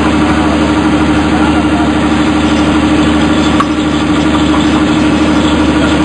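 An engine running steadily with a constant, unchanging hum.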